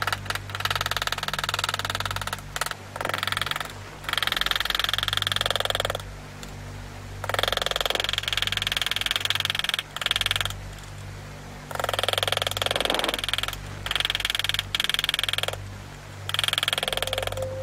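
A power engraving tool buzzing against steel plate in repeated bursts of one to two seconds with short pauses between them, as a graver cuts into the steel.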